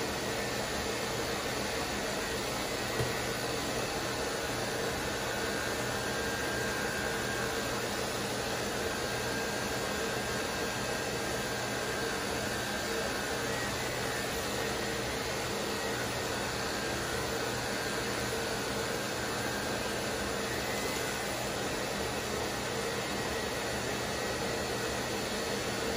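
Electric dog clippers fitted with a vacuum hose, the clipper motor and vacuum suction running with a steady whir as the blade shaves a chow chow's thick coat.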